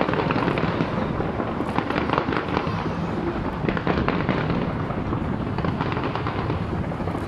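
Skyscraper fireworks display going off in a dense, continuous barrage of bangs and crackles.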